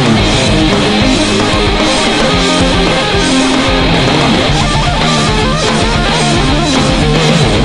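Electric guitar playing an improvised lead over a heavy metal backing track with drums and bass, mixing held notes with quicker runs and some bent notes.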